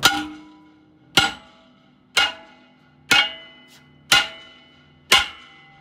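Hammer striking the rear brake drum of a Hino 268 box truck six times, about once a second, each blow leaving a short metallic ring. The blows are meant to shock the drum loose from the hub once the brake has been backed off.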